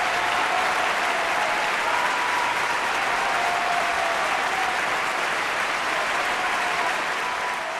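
Crowd applause, steady and dense, beginning to fade near the end.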